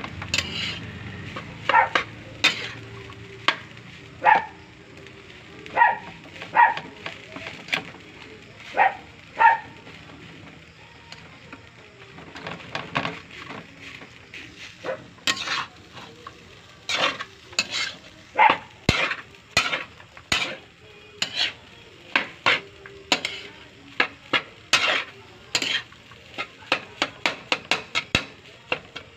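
Metal spatula scraping and clanking against a large aluminium wok as fried rice is stirred and turned. The strokes are spaced out at first, then come more often, with a quick run of them near the end.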